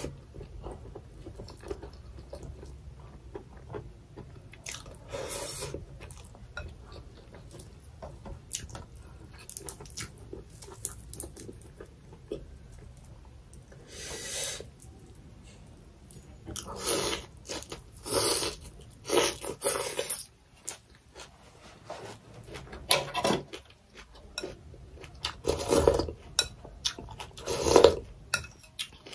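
A person chewing and crunching food close to the microphone, with a run of short, crisp crunching bites. The bites grow louder and more frequent from about halfway through, after she tears off raw green stalks to eat.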